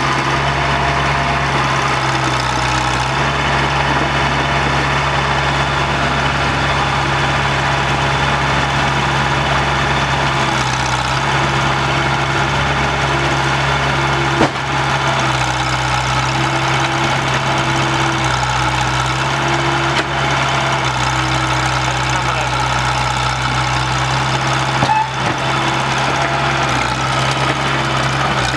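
Crawler excavator's diesel engine running steadily as it works, its pitch shifting a little as it loads sand, with a short knock about halfway through and another near the end.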